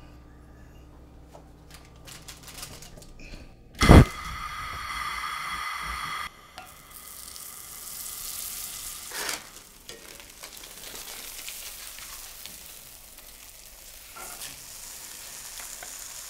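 Butter sizzling as it melts and fries in a hot cast-iron skillet: a steady high hiss. There is one loud knock about four seconds in.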